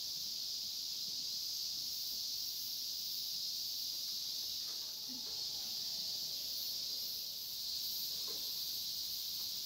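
A steady, high-pitched insect chorus shrilling without a break.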